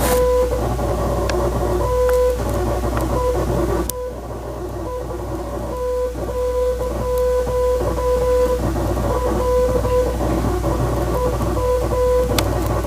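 A Morse code tone, one steady pitch beeping on and off in short and long beeps, over guitar music.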